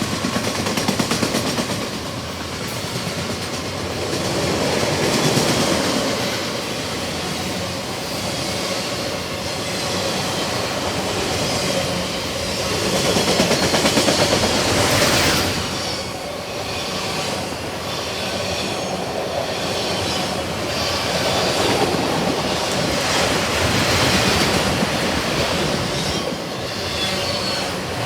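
Freight train of autorack cars rolling past at close range: a steady rumble of wheels on rail with clickety-clack over the rail joints, swelling and easing as the cars go by. A thin wheel squeal comes in during the later part.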